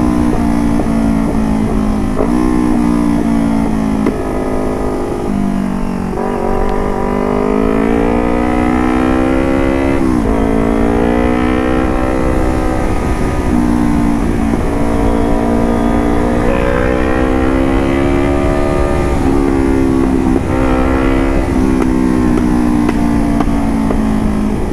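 Engine exhaust note through an aftermarket DX AR1 carbon exhaust, revving up under acceleration. The pitch climbs and falls back several times as the gears change.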